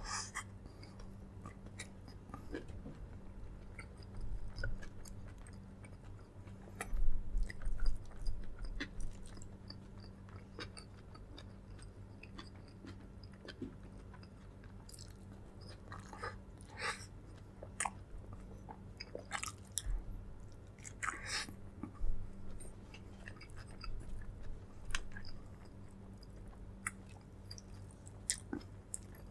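A person chewing and biting food close to the microphone, with scattered sharp mouth clicks and smacks and a burst of louder bites about seven seconds in. A steady low electrical hum runs underneath.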